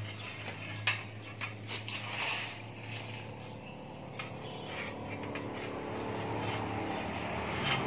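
Light metallic clinks and knocks of a round steel-rod shelf being shifted and pressed into place between square steel tube legs, several sharp ones in the first three seconds and a few softer ones later.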